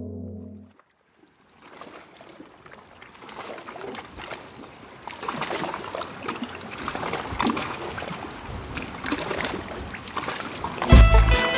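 A steady music chord stops about a second in. After a brief gap, a soft trickling, crackling noise made of many small ticks swells slowly, and music with a deep bass starts abruptly near the end.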